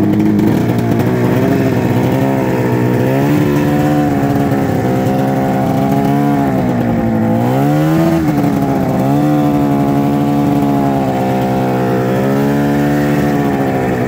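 Arctic Cat ZR snowmobile's two-stroke engine running under way, its pitch wavering with the throttle. About seven seconds in, the pitch drops and then climbs back up as the throttle is eased off and opened again.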